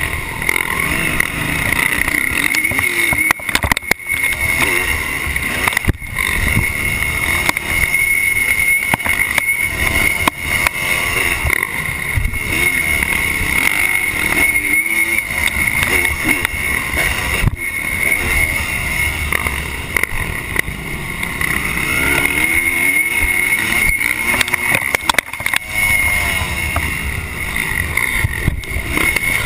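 1986 Honda CR250's single-cylinder two-stroke engine revving up and down hard through a motocross lap, picked up by a camera worn by the rider. It comes with a few sharp knocks along the way.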